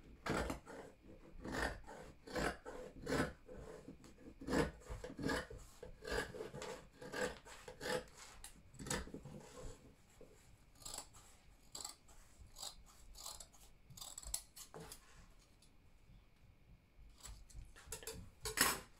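Scissors cutting through several folded layers of Ankara print and satin fabric along a curved line: a run of crisp snips about every half second, thinning out after about ten seconds, with one louder snip near the end.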